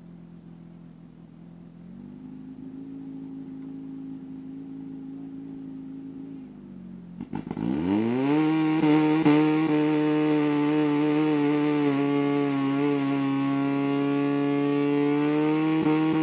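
Portable fire pump engine running at low revs, then revving up quickly about halfway through and holding steady at high, much louder full throttle: the pump is pushing water through the attack hoses to the nozzles.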